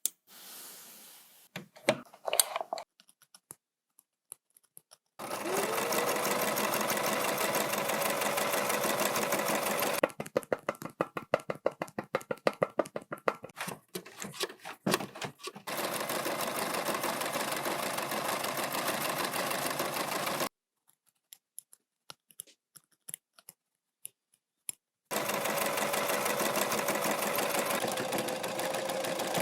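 Electric sewing machine stitching in several steady runs of a few seconds each. Between runs it makes a stretch of slower, separate stitches, and there are small clicks and handling noises in the pauses.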